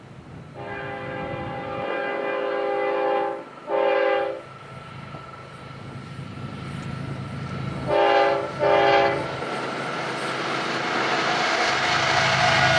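Union Pacific diesel freight locomotive's multi-note air horn: one long blast, a short one, then two more short blasts about four seconds later. Under it the rumble of the approaching locomotives and double-stack train grows steadily louder, with wheels clacking on the rail near the end.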